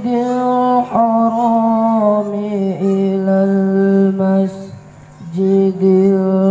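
A boy's voice chanting into a microphone in long, ornamented held notes, in the melodic style of Qur'anic recitation; the phrases dip at their ends, with a breath pause about five seconds in.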